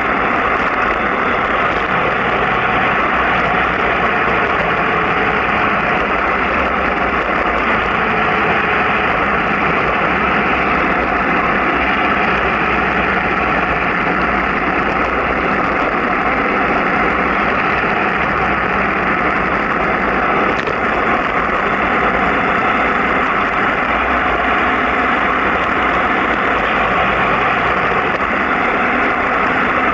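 Steady rush of wind and road noise from travelling downhill at about 50 km/h, unchanging throughout.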